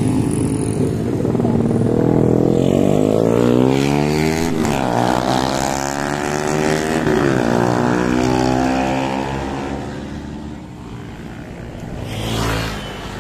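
Motorcycle engines passing at speed. One engine climbs in pitch under hard acceleration, dropping sharply at two upshifts before climbing again, then fades. Near the end there is a brief rush of a vehicle passing close.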